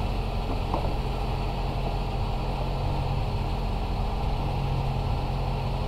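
Car engine idling steadily, warmed up after about twenty minutes of running.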